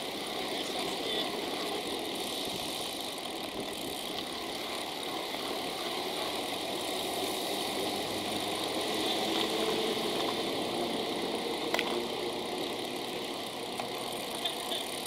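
Road traffic: engines of cars and a truck running in the lanes alongside, with steady road noise picked up by a camera on a moving bicycle. A single sharp click about three-quarters of the way through.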